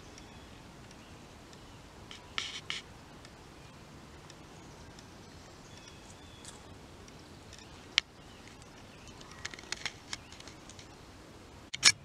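Quiet outdoor ambience with a faint steady hiss, broken by a few short, irregular clicks and taps; the sharpest comes just before the end.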